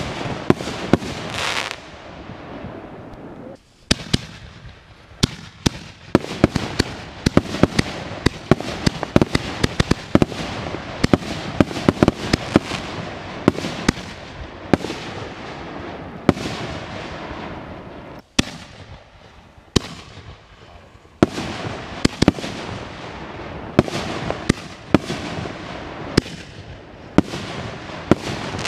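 Aerial fireworks bursting in rapid succession: a dense run of sharp bangs and crackling, many per second. There are two brief lulls, about 4 seconds in and about 18 seconds in.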